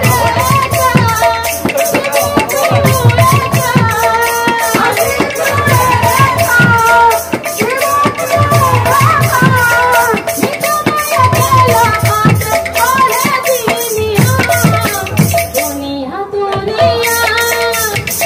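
Sambalpuri kirtan music: a voice singing a folk devotional melody over dhol barrel drums, with a fast, even high beat; the high beat drops out briefly near the end.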